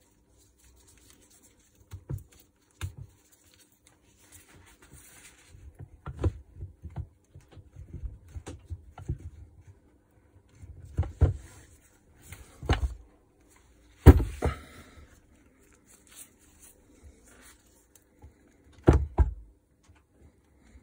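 Handling noise from a Makita UD2500 garden shredder's electric motor being turned over and set down on a workbench: scattered knocks and clunks of its metal housing, with softer handling noise between. The loudest clunk comes a little past the middle.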